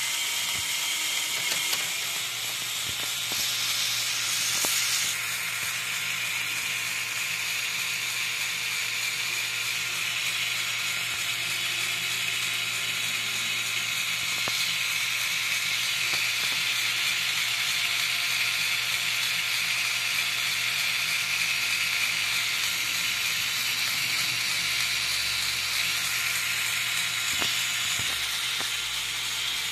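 Lego Technic 8258 crane truck's motor driving the crane through plastic Technic gears, partly modified to a lower gear ratio: a steady mechanical whirring with a low hum and a few light clicks.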